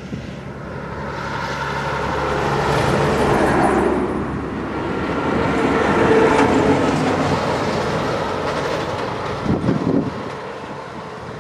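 A train passing on a nearby track, its wheel and rail noise building over the first few seconds, holding through the middle and fading near the end.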